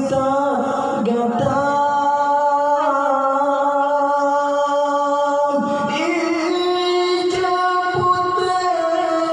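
A solo male voice sings an Acehnese qasidah unaccompanied into a microphone. He holds long, drawn-out notes, and the melody moves to a new pitch about halfway through.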